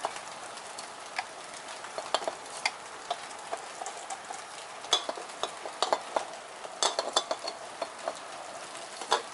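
Mini-fridge refrigeration compressor being tilted and rocked by hand to burp it after its oil was refilled: irregular small clicks and taps over a faint steady hiss.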